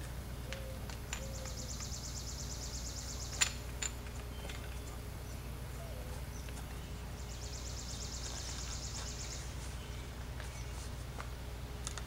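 Chuck key being turned in the geared chuck of a vintage electric drill: two spells of fast, even metal ticking as the key's teeth run round the chuck, with a sharp metal click near the end of the first spell.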